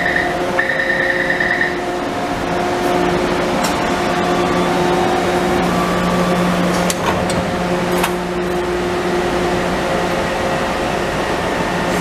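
Taipei Metro train standing at an underground platform: a steady electrical hum of its onboard equipment with several held tones. A repeating high door-warning beep stops about 1.5 s in. A couple of sharp clicks about 7 and 8 s in are the train and platform screen doors closing.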